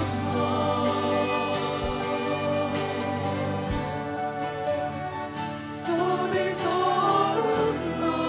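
Live Christian worship song: a band with an electronic drum kit keeps a steady beat under sustained chords and voices singing the melody.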